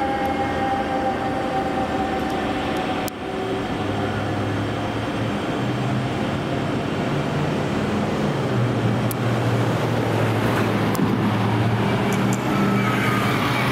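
A fire engine's siren winding down with a slowly falling pitch over the first couple of seconds, then steady street traffic noise with the low hum of idling engines.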